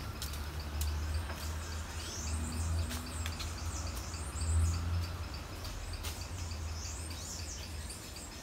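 Background music with a low bass line, over birds chirping in short repeated calls.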